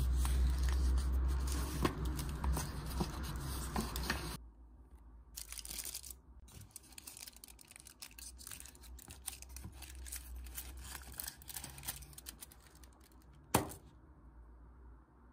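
Paper wrapper and aluminium foil of a chocolate bar being handled and peeled open, with many fine crinkles and tears and a low rumble of handling in the first few seconds. About thirteen seconds in, one sharp snap as a piece of chocolate is broken off the bar.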